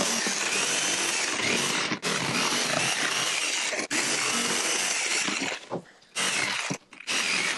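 Corded jigsaw cutting through the black plastic lid of a storage box, the blade running steadily. It pauses briefly about two and four seconds in, then stops twice near the end before starting again.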